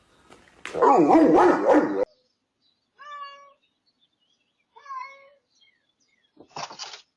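A loud, dense sound lasting just over a second cuts off abruptly; then a cat meows twice, two short calls about two seconds apart.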